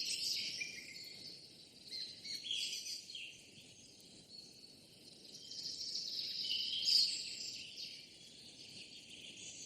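Birds chirping and calling over insect chirring. The chirps come in waves, loudest near the start and again about seven seconds in.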